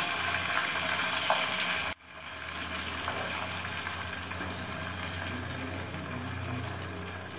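Beaten egg mixture with chopped vegetables sizzling steadily as it is ladled into hot vegetable oil in a frying pan and spread out. The hiss cuts off abruptly about two seconds in and resumes a moment later.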